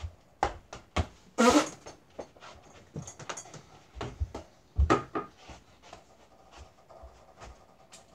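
Irregular thumps and knocks of a small toy basketball bouncing on the floor and hitting the door and a mini over-the-door hoop, along with the shooter's movements. A short, loud, breathy vocal sound comes about a second and a half in.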